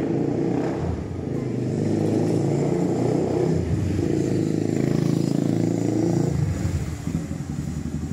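Motorcycle engine running close by, with a steady pitched hum, dropping away about six seconds in.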